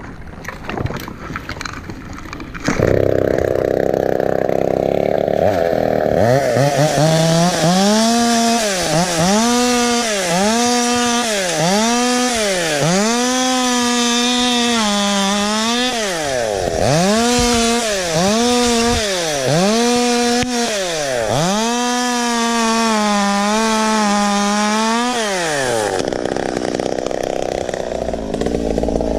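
Stihl 200T top-handle two-stroke chainsaw running from about three seconds in. Its pitch rises and falls over and over, roughly every second and a half, as it is throttled up and down cutting palm fronds, then drops back to a lower note near the end.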